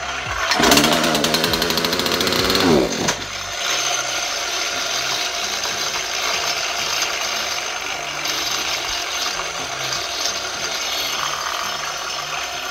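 Small two-stroke chainsaw engine running: revved up for a couple of seconds about half a second in, then dropping back to a steady idle. The saw starts easily but runs poorly.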